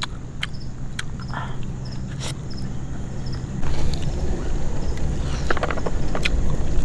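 A series of sharp cracks and clicks from a cooked crab's shell being bitten and broken while eating, with a quick cluster of cracks near the end. Under them runs a steady low rumble that gets louder about halfway through.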